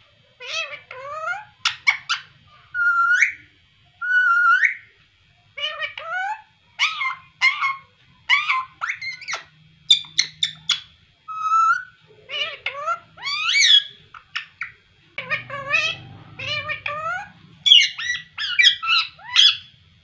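Indian ringneck parakeet chattering and calling: a rapid string of short squawks, chirps and whistled calls that glide up and down in pitch, in quick bursts with brief pauses.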